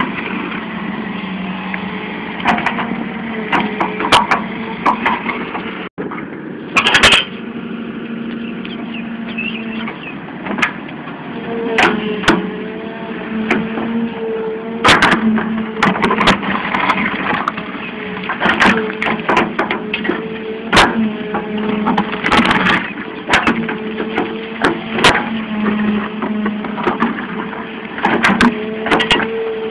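Hydraulic excavator's diesel engine running steadily, its note rising and falling with load as the bucket digs, scrapes and dumps dry earth and stones, with frequent sharp knocks and cracks.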